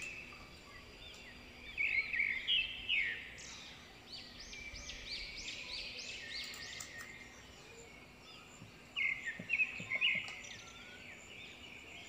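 Small birds chirping: a steady run of quick rising-and-falling chirps, with louder bursts of calls about two seconds in and again about nine seconds in.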